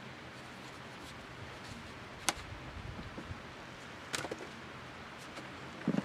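Faint sounds of hands digging potatoes out of compost, with two sharp clicks about two and four seconds in.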